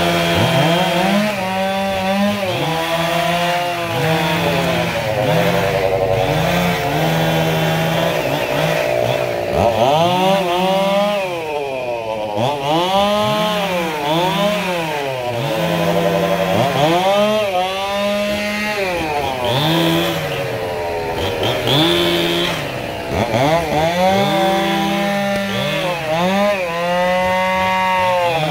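Stihl two-stroke chainsaw revving up and dropping back to idle over and over, every couple of seconds, as it makes short cuts through angsana branches.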